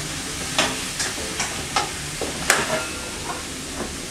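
Dried-parsley shaker jar shaken over a glass mixing bowl: a series of short shakes, with one sharper knock about two and a half seconds in, over a steady hiss.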